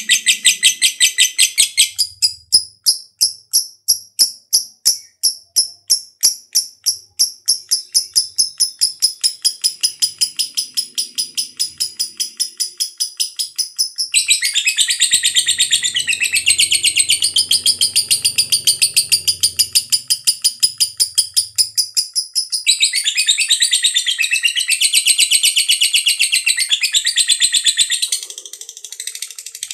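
Lovebird singing a long, unbroken chattering song (ngekek panjang) of fast, high-pitched repeated notes. The notes are clipped and evenly spaced at first, turn to a denser, fuller chatter about halfway through, and break off near the end.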